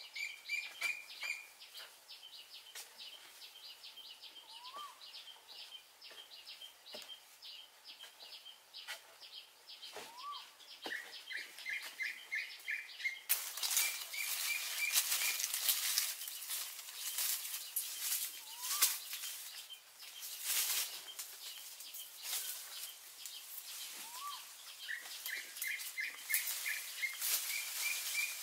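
Wild birds calling: quick runs of short repeated chirps and now and then a single rising whistle. About halfway through, a dense crackling hiss joins in.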